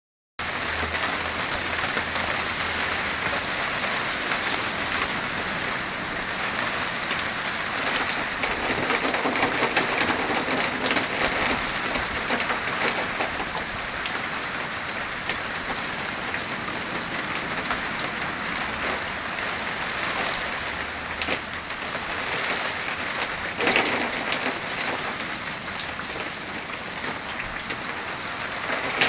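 Steady rain falling on wet ground, leaves and puddles: a constant hiss with many close individual drops ticking through it.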